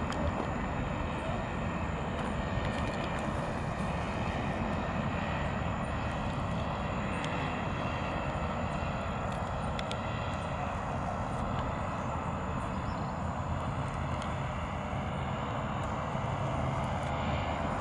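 Distant paramotor engine droning steadily as the powered paraglider flies overhead.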